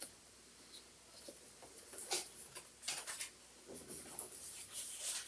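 Paper photos and cards being handled and shuffled: light scratchy rustling and sliding, a few short scrapes at first, busier from about two seconds in.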